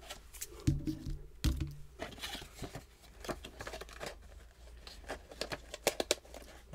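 A cardboard miniatures box being opened and handled: scattered crinkling, tearing and tapping of the packaging. Two brief low hums come about a second in.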